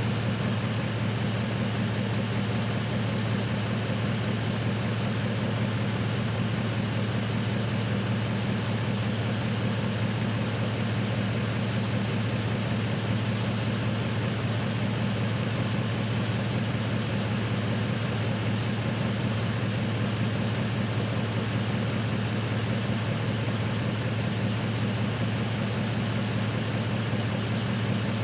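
Truck engine idling, a steady low hum that holds the same speed throughout.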